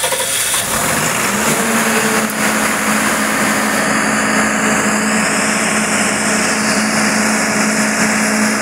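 Caterpillar diesel generator engine running steadily just after start-up. A steady hum comes in about a second and a half in.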